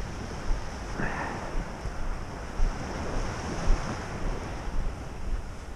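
Wind buffeting the microphone in irregular low gusts over a steady wash of ocean surf breaking on the beach.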